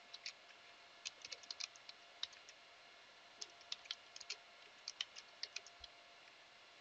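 Faint clicking of computer keyboard keys being typed, in several short bursts of quick keystrokes.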